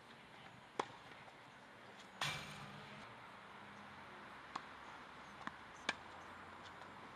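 Tennis ball pops: a few sharp, separate hits of the ball on racket strings and the hard court, the loudest about two seconds in, trailed by a short rush of noise.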